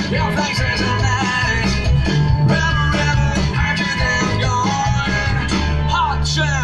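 Live rock band playing through an outdoor PA: guitars, bass and drums with a singer's voice over them.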